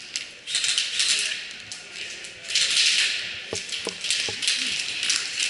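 Airsoft guns firing in bursts, a rapid clattering rattle, about three bursts a second or so long each, with scattered sharp clicks.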